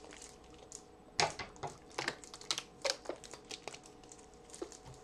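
A run of irregular light clicks and taps from small objects being handled on a tabletop.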